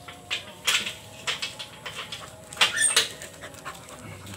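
Dogs moving about close by: a run of short scuffs and taps, loudest in a cluster a little before three seconds in.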